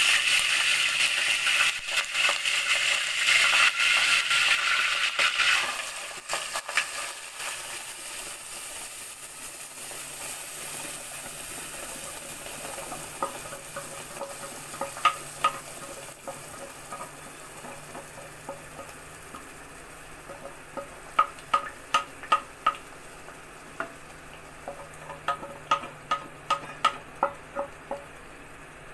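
Curry leaves sizzling loudly in hot oil in an aluminium pressure cooker. About six seconds in, the sizzle drops to a quieter frying as wet ground masala paste goes in. Later come a series of sharp ringing taps as a wooden spatula knocks the paste out of a steel mixer jar into the pot.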